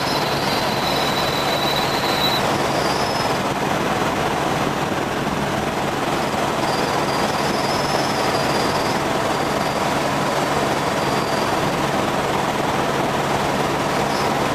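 Helicopter in flight: a steady drone of rotor and engine, with a faint high whine that comes and goes.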